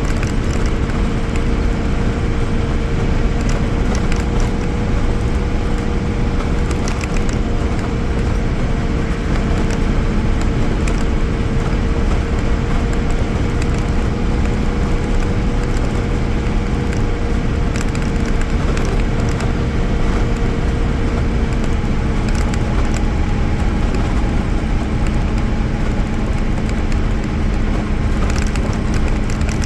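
Mercedes-Benz OM-366A six-cylinder diesel engine of an OF-1318 bus running under way, with steady engine noise and the body rattling and clicking. About two-thirds through, the engine note shifts to a lower pitch.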